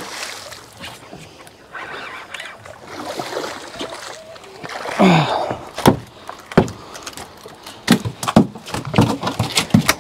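A hooked sheepshead splashing at the water's surface, then a quick run of sharp knocks and slaps from about six seconds in as the fish is swung aboard and flops on the boat's fiberglass deck.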